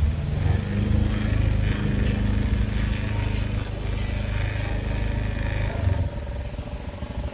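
A motor vehicle's engine runs steadily close by, then fades out about six seconds in.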